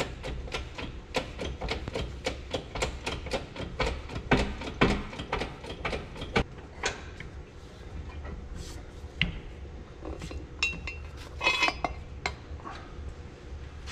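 Shop press working the pinion shaft and bearings out of a Clark tractor front-axle differential housing. A fast, even run of sharp metallic clicks, about three or four a second, thins out after about six seconds, and a few louder clinks and rattles follow near the end as the shaft comes free. The press is taking hardly any pressure, so the shaft comes out easily.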